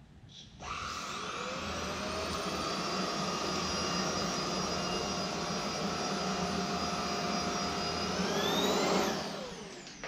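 Roidmi F8 Storm cordless stick vacuum switched on with its soft roller head: the motor whine rises as it spins up, then runs steadily while it sucks up stray oats from a hard floor. Its pitch climbs about eight seconds in, then it is switched off and winds down near the end.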